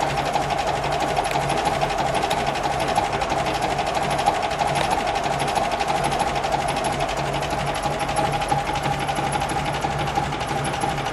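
1936 Alvis Firebird drophead coupe's engine idling steadily with a fast, even mechanical chatter.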